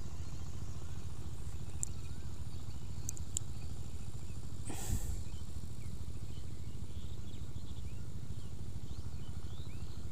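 Steady low background hum with a few faint clicks and a brief rush of noise about five seconds in.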